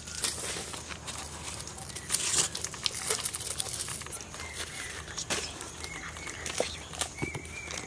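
Foil and paper wrappers crinkling, with scattered sharp clicks and snaps as KitKat chocolate bars are unwrapped and handled.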